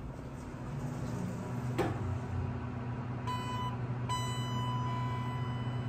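Elevator hall lantern signal on a ThyssenKrupp hydraulic elevator: a short electronic beep about three seconds in, then a longer one of the same pitch about a second later. Under it runs a steady low hum, with a single click about two seconds in.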